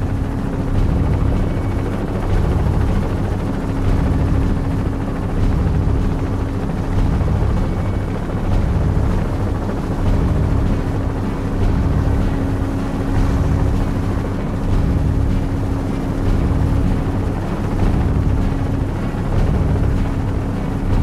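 Small helicopter in flight, heard from a camera mounted on the airframe: rotor and engine running steadily, with a steady hum over a deep rumble.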